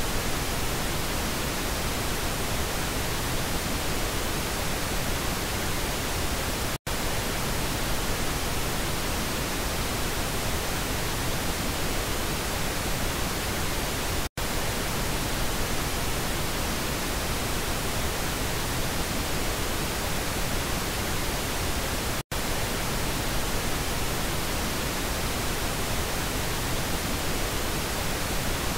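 Pink noise test signal for checking stereo speakers: a steady, even hiss across the whole range, cut off very briefly three times, about every seven and a half seconds, as it moves between the left and right channel.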